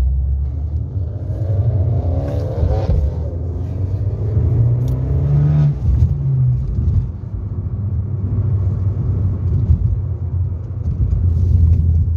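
A small Abarth hatchback's engine and road noise, heard from inside the cabin while driving, with a steady low rumble throughout. The engine note rises and falls with the throttle a couple of times in the first six seconds.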